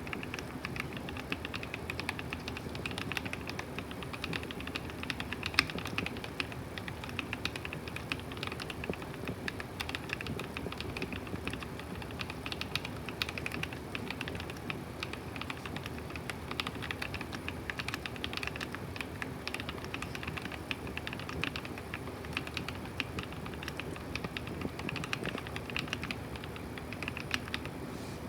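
Monsgeek M1 aluminium-cased mechanical keyboard being typed on continuously: a fast, steady stream of keystrokes with the odd louder key, one of them about five and a half seconds in.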